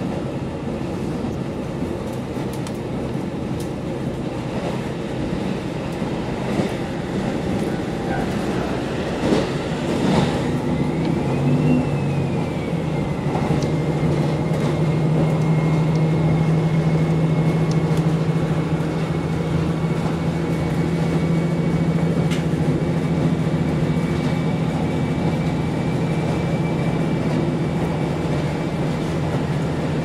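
KiHa 40 diesel railcar running along the line, heard from inside the carriage: a steady rumble of wheels on rail and the diesel engine. About twelve seconds in the engine note grows stronger and then holds steady, and a few clicks sound shortly before.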